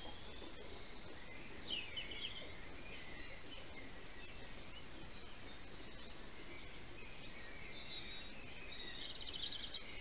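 Faint songbird chirps over a steady background hiss: a few chirps about two seconds in and a quick trill near the end.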